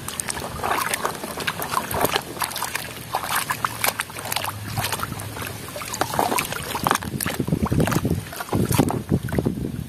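Muddy water sloshing and splashing irregularly in a plastic tub as a plastic toy crocodile is pushed, turned and rubbed about in it by hand.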